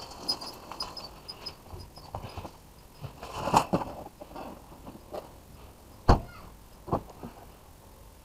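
Handling at the back of a car. There is rustling and a thump as a cardboard box of network cable is lifted out of the boot about three and a half seconds in. The boot lid and a rear door follow: a sharp bang about six seconds in, and a lighter knock a second later.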